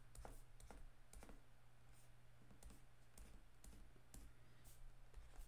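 Faint, irregular clicks and taps of a stylus on a drawing tablet as lines are drawn, over a low steady hum.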